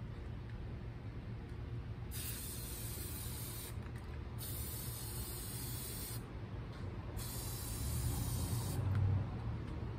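Aerosol spray paint can sprayed through a paper stencil in three hissing bursts, each about one and a half to two seconds long, with short pauses between them.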